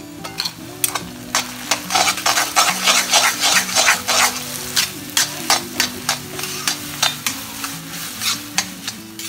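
A spatula stirring and scraping chopped okra and ground coconut-chilli paste around a kadai, with quick repeated clatters against the pan over a steady sizzle of frying.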